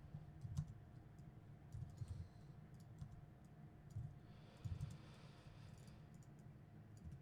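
Faint typing on a computer keyboard: irregular keystrokes in small clusters with pauses between.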